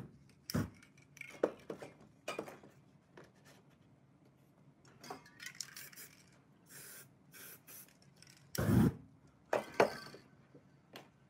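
Scattered handling noises of spray-paint art: paper sheets being pressed down and lifted off the painting, spray cans clinking, and a few brief hisses of spray paint. The loudest is a knock about nine seconds in.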